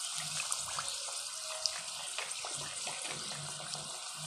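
Golgappa puris deep-frying in hot ghee in a kadhai: a steady sizzling hiss with small scattered crackles as they are pressed with a slotted spoon to make them puff up.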